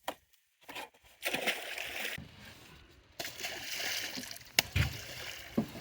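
Water splashing and sloshing in two spells while a hoop net packed with buffalo fish is worked at the boat's side, with a few sharp knocks in between.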